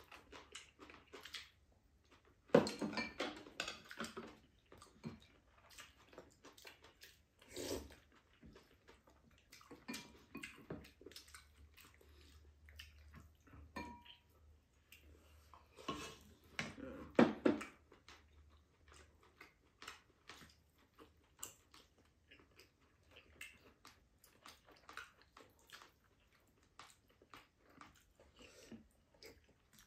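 Two people eating: chewing, and chopsticks and spoons clicking and scraping against ceramic bowls and a metal pan, in many small irregular clicks with louder spells about three seconds in and around sixteen to seventeen seconds.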